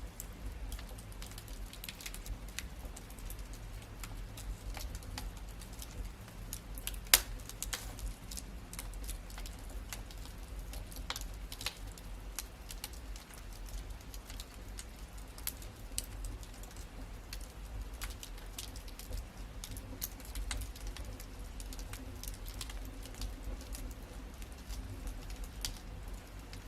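Wood fire crackling in a fireplace: scattered small snaps and pops over a low steady rumble, with one sharp, much louder pop about seven seconds in.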